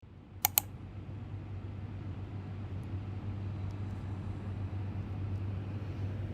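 A steady low mechanical hum, with two sharp clicks about half a second in.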